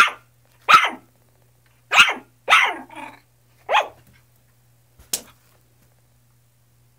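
Poodle puppy barking: a string of short, high barks, each about a quarter-second, spread over about five seconds.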